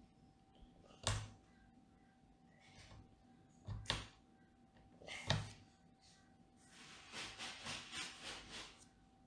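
Plastic LEGO pieces clicking and knocking as they are handled and pressed together: a few sharp separate clicks, then a quick run of small rattles near the end.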